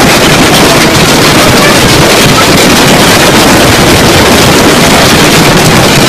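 Heavy hailstorm: dense hail pelting the ground, with wind buffeting the microphone, a loud, steady, unbroken noise.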